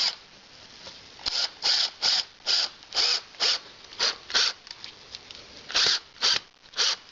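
A series of about a dozen short rasping tool strokes, irregularly spaced, starting about a second in, from work on the fasteners of a cast-iron fireplace firebox's doors.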